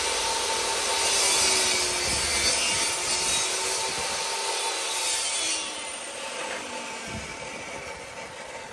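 Table saw cutting a trial rabbet in a piece of trim wood fed through with a push stick. The cutting noise stops sharply about five and a half seconds in, and the saw runs on more quietly, fading slowly.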